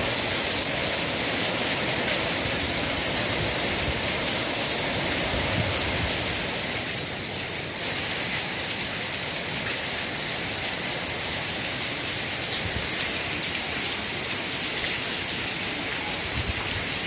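Rain falling steadily, an even hiss that dips slightly about seven seconds in.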